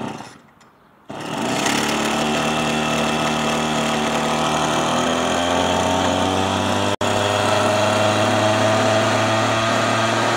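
Husqvarna 525RS brush cutter's small two-stroke X-Torq engine catching on the second start, with the choke off, about a second in after a pull of the starter cord, then running steadily at idle.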